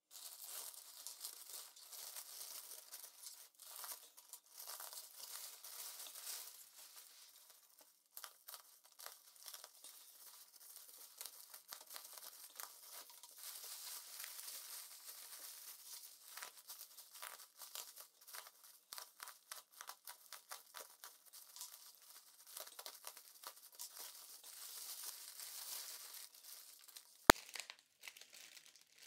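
Plastic mailer bag and bubble wrap being handled and pulled open: steady crinkling and rustling of plastic, with tearing. A single sharp click stands out near the end.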